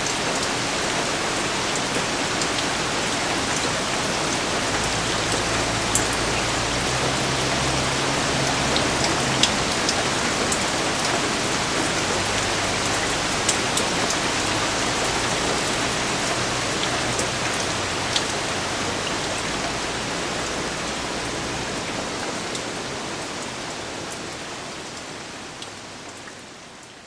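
Steady rain falling, a dense even hiss with the odd sharper drop striking close by, fading out toward the end.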